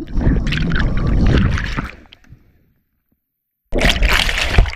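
Turbulent river water heard under the surface: a bubbling, rushing noise for about two seconds that cuts off abruptly, then a second burst of the same noise near the end.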